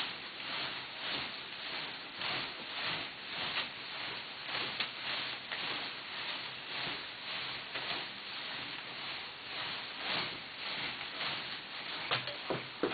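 Satin ribbons of a costume rustling as the wearer moves and spins, a soft swishing that swells and fades over and over.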